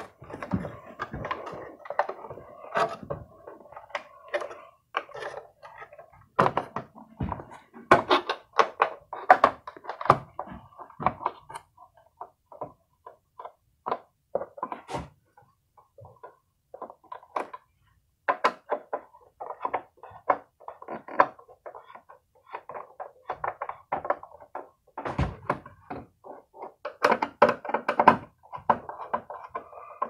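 Hand screwdriver tightening the mounting screws of a plastic ceiling lampholder into a plastic electrical box: irregular clicks, scrapes and small knocks as the screws turn and the fixture is handled.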